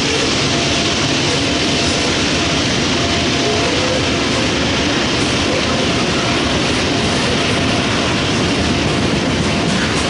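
Freight train passing close by on an uphill grade, most likely its loaded grain hopper cars rolling past: a loud, steady rumble of wheels on rail, with no break.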